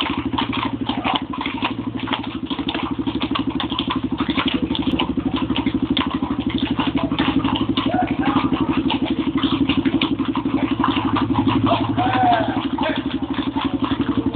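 Horses' hooves clopping irregularly on cobblestones, many hooves at a walk. Under them runs a steady low hum with a fast pulse, like an idling engine.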